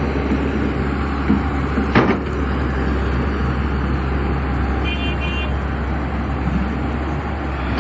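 Heavy diesel engine, likely an excavator's, running steadily with a strong low hum. A sharp knock comes about two seconds in, and two short high beeps about five seconds in.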